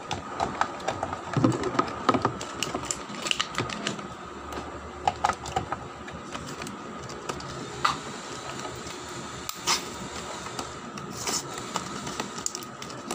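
Irregular plastic clicks, taps and clatter as a toy remote-control car and its remote are handled and loaded with batteries.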